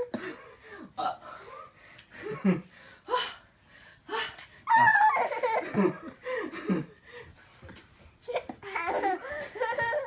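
A baby laughing in short, separate bursts, broken by hiccups, loudest about halfway through.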